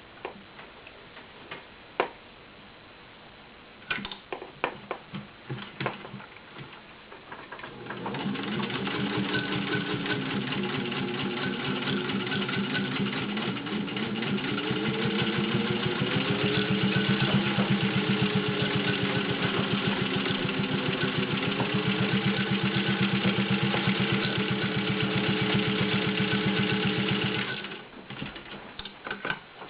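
Singer 15-91 sewing machine, gear-driven by its potted motor, stitching through four layers of garment leather: a rapid, even needle clatter and motor hum that speeds up and slows down, running for about twenty seconds and stopping abruptly. A few clicks and knocks of handling come before it starts.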